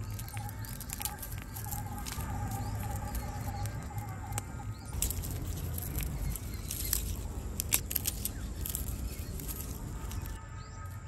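Outdoor ambience with a steady low rumble and faint repeated bird chirps, overlaid by scattered sharp, papery crackles of dry garlic skin being peeled by hand.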